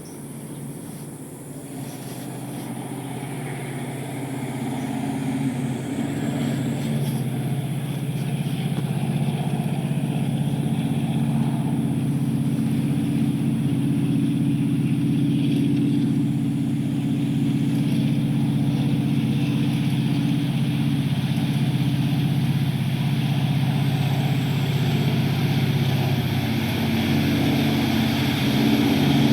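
Diesel-electric locomotive engine sound played by an HO-scale Taiwan Railway model's onboard sound system, a steady low drone that builds in loudness over the first several seconds and then holds.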